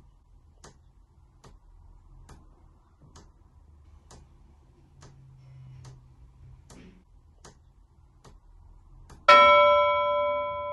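Wall clock ticking evenly, about five ticks every four seconds. Near the end a single loud chime strikes and rings on, slowly fading: the clock striking the hour.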